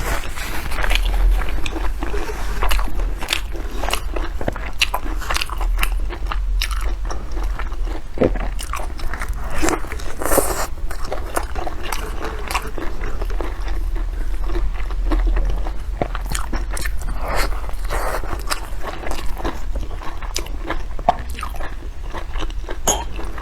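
Close-miked eating: repeated biting and chewing of crunchy food, with many sharp, crisp crackles coming irregularly.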